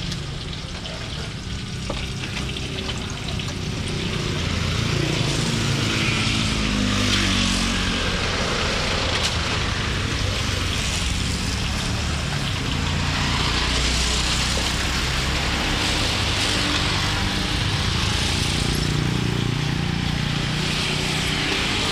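Pieces of fruit deep-frying in a large wok of hot oil, a steady sizzle throughout. A motor vehicle engine runs low underneath.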